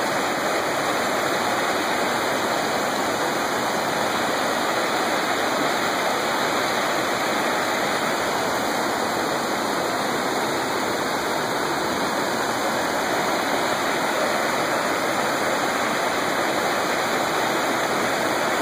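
Mountain river rushing over boulders and through shallow rapids: a steady rush of water.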